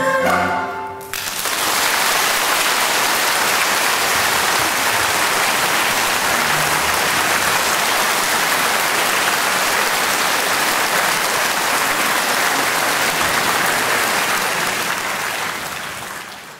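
The last notes of a Chinese orchestra's erhu ensemble piece, stopping about a second in, then an audience applauding steadily, fading out near the end.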